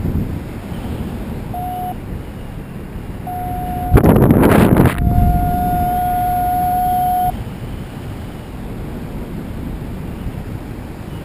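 Wind rushing over the camera microphone of a paraglider in flight, with a loud gust about four seconds in. A steady electronic tone sounds briefly twice, then is held for about two seconds and cuts off.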